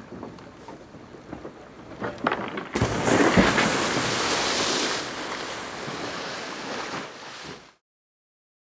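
An inverted sailing yacht rolls back upright with a sudden loud rush of water about three seconds in, after a few seconds of light sloshing and knocking, as the hull and mast come up out of the water and water pours off the boat. The water noise eases after a couple of seconds and then stops abruptly near the end.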